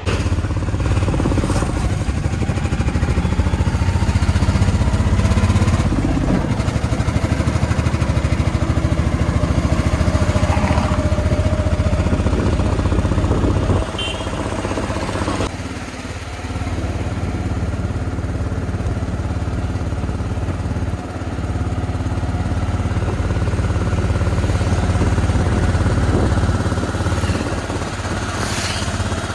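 Auto-rickshaw engine running while under way, with steady road noise, dipping briefly about halfway through.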